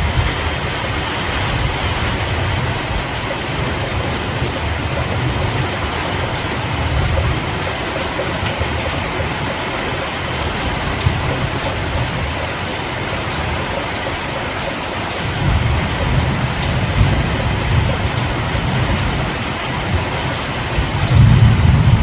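Steady rain falling, an even hiss of drops. A low rumble comes and goes beneath it, swelling a few seconds past the middle and again near the end.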